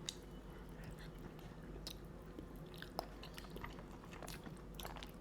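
Faint eating sounds: chewing and biting on crab from a seafood boil, with scattered small clicks and crackles.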